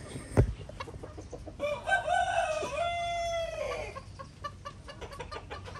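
A rooster crowing once, a single long call of about two seconds, with chickens clucking around it. A sharp knock sounds just before the crow.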